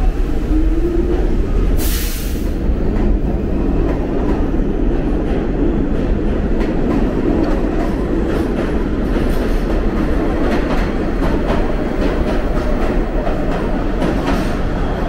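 New York City subway train running along the station platform: a steady rumble of the moving cars. A short rising whine comes near the start and a brief loud hiss about two seconds in, and in the second half the wheels clack quickly over the rail joints.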